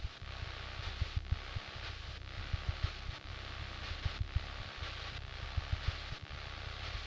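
Aviat Husky light aircraft's engine and propeller running steadily on a slow landing approach, heard from inside the cockpit, with irregular low buffeting of wind on the microphone.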